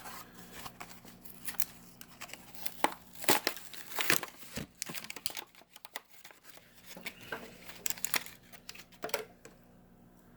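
Plastic and cardboard toy-car packaging crinkling and tearing in irregular bursts of crackles as a die-cast car is pulled out of it, busiest in the first half and again briefly near the end.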